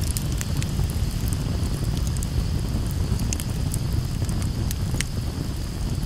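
Campfire burning, with scattered sharp crackles and pops over a steady low rumble; one pop about five seconds in is louder than the rest.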